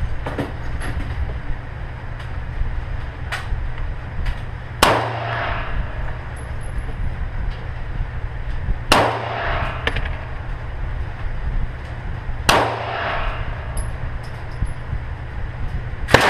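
Semi-automatic pistol fired four times, slow single shots about four seconds apart, each sharp report followed by a ringing echo of the indoor range. Fainter sharp cracks fall between the shots over a steady low hum.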